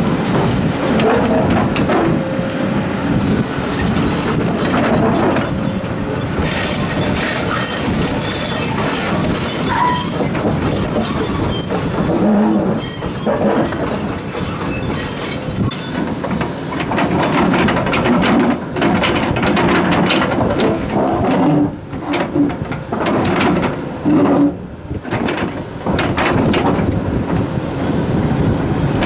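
Large Komatsu hydraulic excavators working boulders: engines running under load while rock grinds and scrapes against steel, with intermittent high metallic squeals over the first half.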